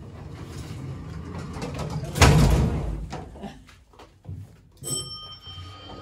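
The strap-pulled, vertically sliding doors of a 1964 Otis freight elevator come shut with a single loud, heavy bang about two seconds in, followed by some rattling. Near the end come two sharp clicks, the second with a brief ringing tone that dies away.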